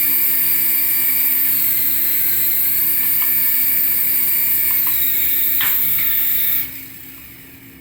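Small electric motor of a toy remote-control vehicle running with a steady high-pitched whine, cutting off suddenly about six and a half seconds in.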